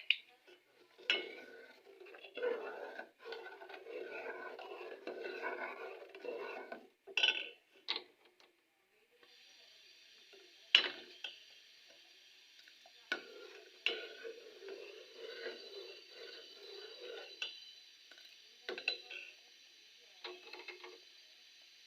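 A spoon stirring and scraping in a cooking pot, with sharp clinks of metal on the pot's rim. About nine seconds in, a steady hiss starts and runs under further bouts of stirring.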